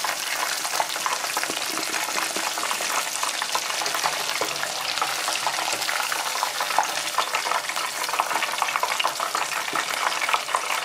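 Breaded oysters deep-frying in a pot of hot oil: a steady, dense crackle and sizzle that cuts off suddenly at the end.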